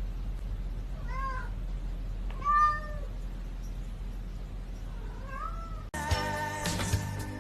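Domestic cat meowing three times, the second meow the loudest, over a steady low hum. Music cuts in abruptly near the end.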